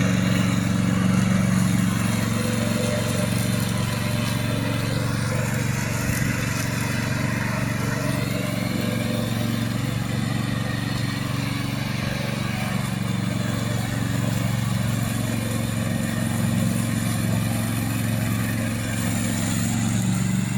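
Remote-controlled mower's engine running steadily, a continuous low hum with a noisy mechanical whir over it.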